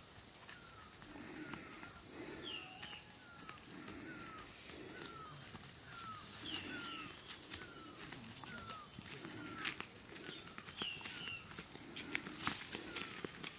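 A steady, high-pitched drone of insects such as cicadas or crickets. Over it a bird repeats a short falling note about twice a second, with an occasional higher note, and soft footsteps thud at a walking pace.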